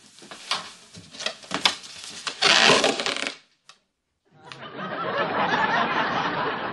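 A scatter of small clicks and handling noises, with one louder rustle about two and a half seconds in. From about four seconds in, a studio audience laughs steadily.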